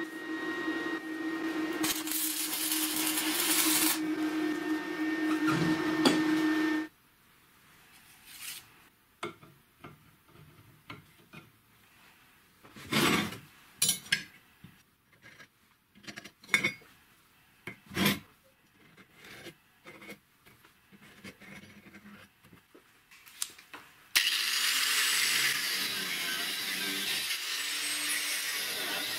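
Electric arc welding crackling and spattering on a steel joint for about the first seven seconds. Then scattered scrapes, clicks and knocks as steel is handled and scratched with a scribe. About 24 seconds in, an angle grinder starts up and runs loudly against steel tube.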